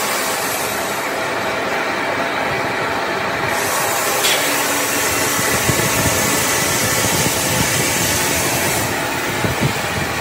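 Steady machine noise from a marble factory's stone-cutting machinery running. In the second half come irregular soft knocks as marble strips are handled and stacked onto the truck bed.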